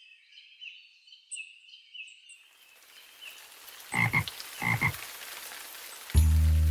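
Frogs croaking. A run of high chirping calls comes first, then a steady hiss like falling rain, with two loud low double croaks about four and five seconds in. Children's music with a steady beat starts near the end.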